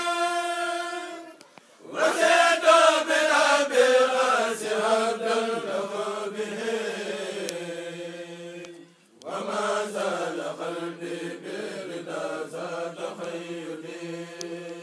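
A group of men chanting a xassida, a Senegalese Sufi devotional poem, together in long, gliding phrases. A held note ends about a second in, and the chant breaks briefly twice, near the start and about halfway.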